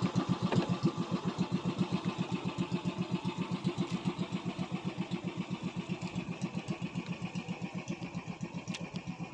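Small fishing boat's engine chugging steadily at about eight beats a second, slowly getting quieter.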